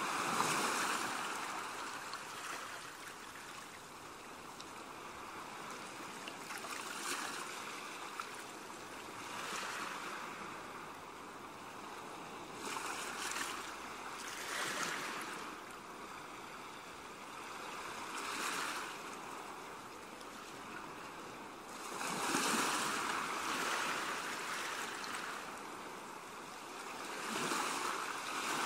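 Ocean waves washing in and drawing back, a rushing hiss that swells and fades every few seconds, with bigger surges about two-thirds of the way through and near the end.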